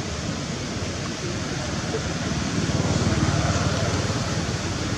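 Steady outdoor background noise, a low rumble with a hiss over it that swells slightly about halfway through.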